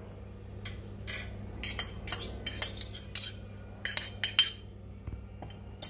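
A steel spoon clinking and scraping against a small stainless-steel cup in a quick run of metallic taps, about a second in until near the end, as crushed cardamom is knocked out of the cup.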